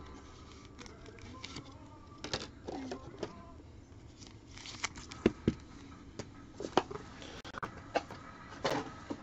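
Trading cards being handled and sorted: scattered light clicks, taps and rustles, the sharpest about five seconds in and again near the end.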